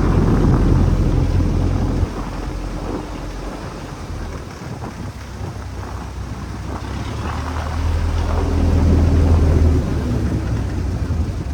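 A small fishing boat's engine running at sea with a steady low hum, swelling in loudness near the start and again from about seven to ten seconds in, over a rushing noise of wind and water.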